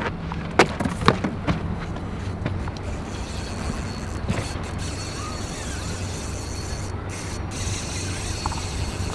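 Spinning reel working against a hooked king salmon, its drag giving line to the running fish. Two sharp knocks come about half a second and a second in, over a steady low hum.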